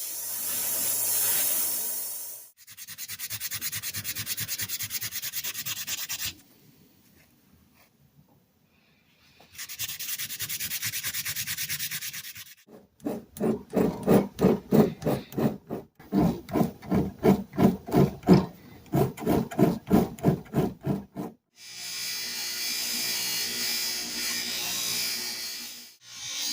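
Abrasive rubbing on the metal of old rusty hand tools during polishing, in several short stretches of steady scrubbing. In the middle comes a run of quick back-and-forth hand strokes, about two to three a second, lasting some eight seconds.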